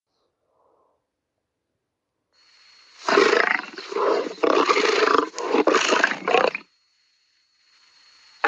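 Lion roaring: a run of four roars starting about three seconds in and lasting about three and a half seconds, then a pause, with another roar beginning at the very end.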